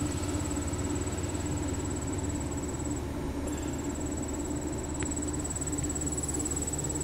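Steady low hum with the continuous high-pitched trill of a cricket or similar insect, which breaks off briefly about three seconds in.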